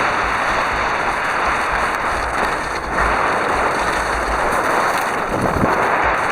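Wind buffeting the microphone while skiing downhill, with low irregular rumbles, over a steady rushing hiss of skis sliding on snow.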